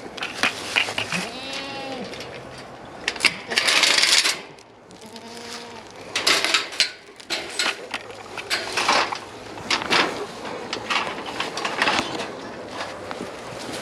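Goats bleating twice, short arching calls, among repeated metallic clinks and clanks, with a loud rustling burst about three and a half seconds in.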